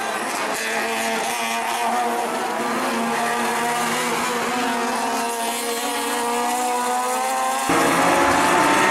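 Several circuit race cars' engines running at high revs, their pitches sliding up and down as the drivers work through the gears. Near the end the sound turns suddenly louder and fuller.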